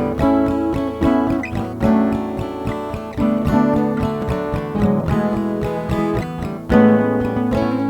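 Upbeat, cheery guitar instrumental: quick plucked and strummed notes over a steady bass line.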